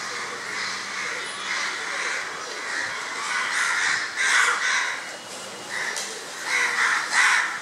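Harsh bird calls, repeated many times in short runs, loudest about four seconds in and again near the end.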